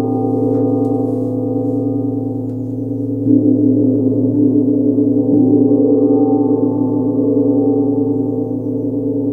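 Tibetan gong struck softly with a padded mallet, giving a deep, many-toned ringing hum. It swells again with fresh strokes about three seconds in and a couple of seconds later.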